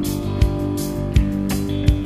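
Country music instrumental: guitar over a steady drum beat, with a kick-drum stroke about every three quarters of a second.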